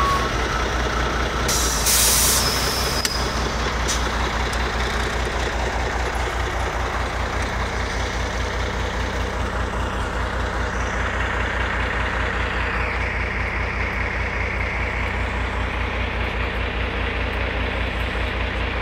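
Heavy dump truck's diesel engine running steadily with a low, even pulse, and a loud hiss of released air from the truck's air system about two seconds in.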